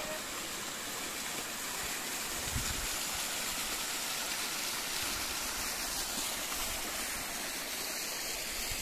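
Small waterfall streaming down a rock face: a steady rush of falling water.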